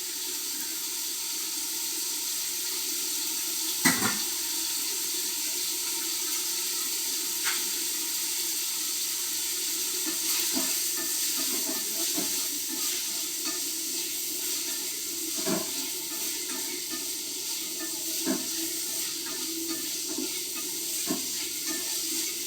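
Food sizzling in a pan with a steady hiss, with a sharp knock every couple of seconds from a spoon or ladle striking the pan as it is stirred.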